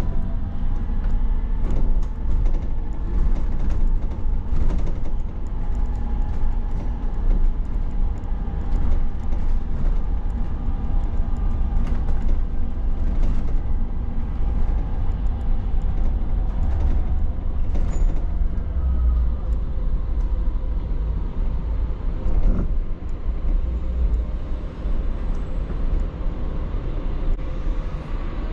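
Interior of an Optare MetroDecker EV electric double-decker bus on the move: a steady low rumble from road and body, with the electric drive's whine rising and falling as the bus speeds up and slows. Short rattles and clicks from the bodywork now and then.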